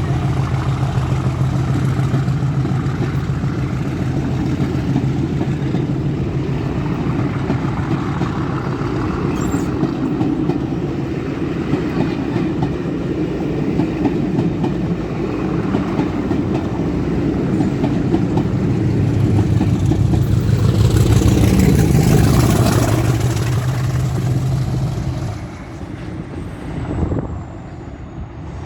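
English Electric Class 50 diesel locomotives working hard under power as the train passes, a steady deep engine drone with a high fan whine. The sound swells to its loudest about twenty seconds in as the locomotive goes by, then drops away, the high whine falling in pitch.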